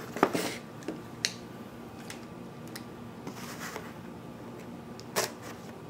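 Cardboard box of coffee pods being opened and its contents handled: scattered clicks and taps with short rustles, the sharpest crack a quarter of a second in and another near the end.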